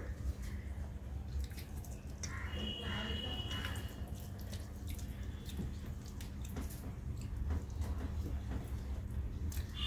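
Close-up eating sounds: fingers mixing soft rice on a steel plate and wet chewing, heard as many small clicks and smacks over a steady low hum. A brief high tone sounds about two and a half seconds in and lasts about a second.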